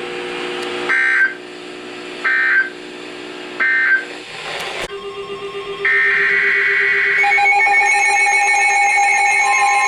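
Emergency Alert System data tones: three short bursts about a second and a quarter apart, the end-of-message signal that closes the tornado warning. Then a low steady tone sounds, a higher alert tone comes in about six seconds in, and from about seven seconds several steady alarm tones sound together as the next alert begins.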